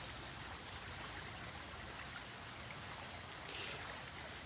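Steady running water, like a stream, with a brief higher hiss about three and a half seconds in.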